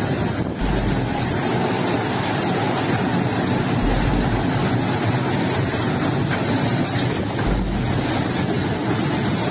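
Fast floodwater rushing in a swollen river: a loud, steady rushing noise, with a deep low rumble every three seconds or so.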